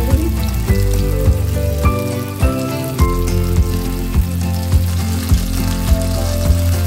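Whole pomfret sizzling as it shallow-fries in oil in a nonstick pan, under background music with a steady beat and a melody moving in steps.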